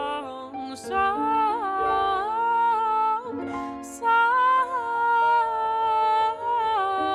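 Acoustic song: a voice singing long, slowly gliding held notes over soft, steady instrumental accompaniment, with two brief hissy breaths or sibilants, about a second in and about four seconds in.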